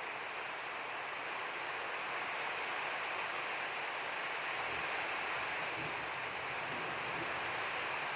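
Steady, even hiss of background noise, with a faint low rumble joining it about halfway through.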